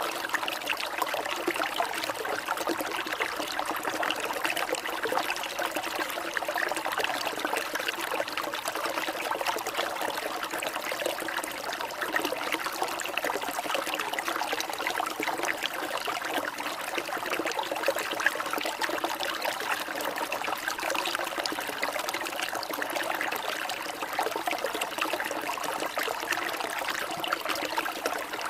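Water trickling and splashing steadily, an even, unbroken babble of running water.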